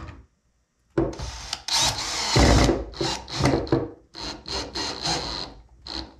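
Power drill driving screws through the base into a 2x4 upright, run in a series of short trigger bursts of uneven length, some with a high motor whine.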